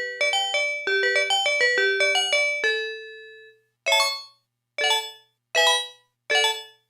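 Roland D-05 synthesizer module playing a patch from a sound card: a quick run of struck notes that ends on a held note fading out about three and a half seconds in, then four single struck notes a little under a second apart, each ringing briefly and dying away.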